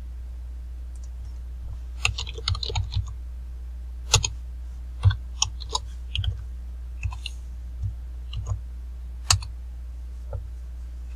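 Keystrokes on a computer keyboard in short irregular runs, starting about two seconds in, over a steady low hum.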